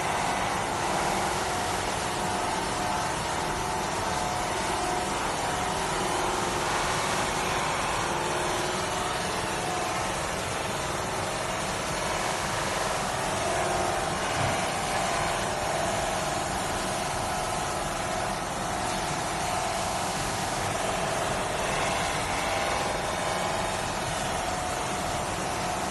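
Double-station automatic metal polishing machine running: a steady whirring hum from its motors, with a steady whine in it.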